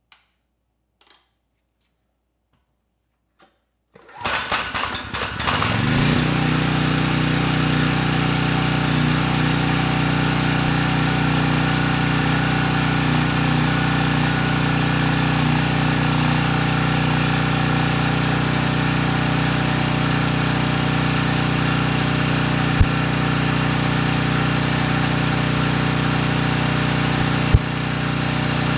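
Briggs & Stratton Storm Responder generator's single-cylinder overhead-valve engine cranking and catching about four seconds in, on fuel poured straight into the carburetor, then running steadily at a constant speed while it makes power. It starts right up and sounds healthy. Two brief sharp pops come through the running sound later on.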